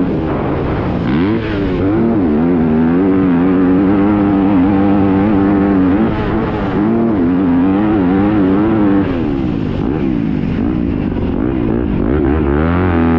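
Yamaha motocross dirt bike's engine under hard throttle, the revs climbing and dropping again and again as the rider shifts and rolls on and off the throttle.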